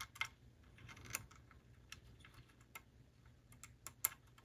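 Small, irregular clicks of the plastic side frame and truck parts of an HO-scale model locomotive being handled and snapped into place, the loudest click near the end.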